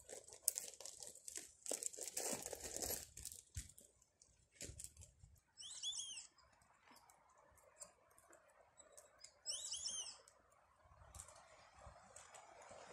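Crinkling and rustling of something being handled in the hands, dense for the first few seconds, then sparse. Two short, high chirping calls, each a quick cluster of notes, sound about six and ten seconds in.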